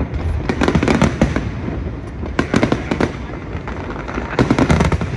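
Fireworks bursting in quick clusters of bangs and crackles, three volleys about two seconds apart over a steady rumble.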